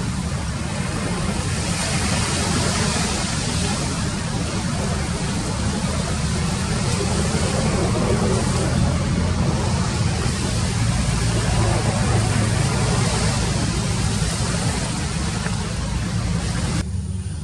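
A steady low engine rumble under a loud, even hiss. Near the end the hiss drops away suddenly and the rumble carries on.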